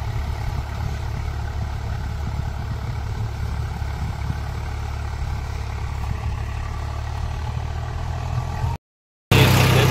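Tractor's diesel engine running steadily as it pulls a rotavator tilling the field. Near the end the sound drops out for half a second, then comes back louder and closer.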